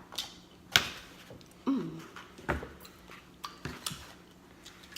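Close-miked eating of fried chicken: a scatter of sharp mouth smacks and crunchy chews, the loudest a little under a second in. A brief hummed 'mm' comes about a second and a half in.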